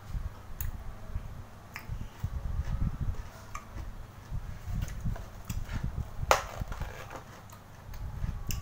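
A person eating and chewing with mouth closed: low rumbling chewing noise with a scatter of sharp clicks and crunches, the loudest about six seconds in.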